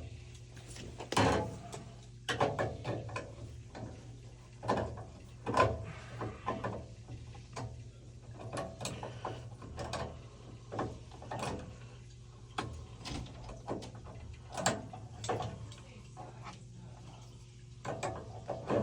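Irregular clicks, clanks and knocks of hand tools and metal parts being handled during work on a gas water heater's burner and pilot assembly, over a steady low hum.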